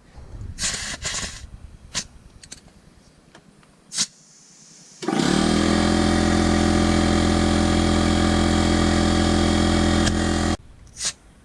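Small air compressor inflating a freshly plugged tire: it spins up about halfway through, runs steadily with a loud low hum and hiss for about five seconds, then cuts off suddenly. A few clicks and knocks come before it starts, with one more click just after it stops.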